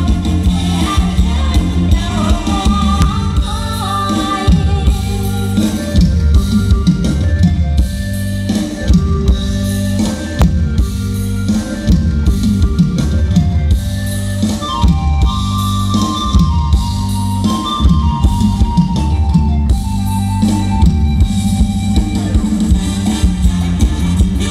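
Loud live Isan mor lam band music: a drum kit beating steadily over heavy bass, with a melody line above.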